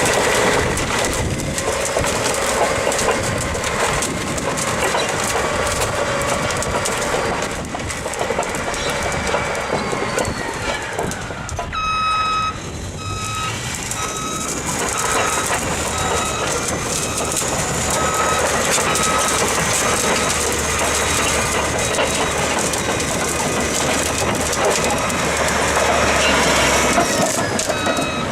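Heavy machinery running with loud, dense mechanical noise. Around the middle, a reversing alarm beeps at an even pace for several seconds.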